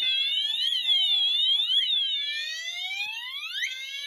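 Wheelock MT multi-tone horn strobe sounding its siren tone in slow rising sweeps of about two seconds each, layered with higher repeating warbling alarm tones from the test fire alarm system.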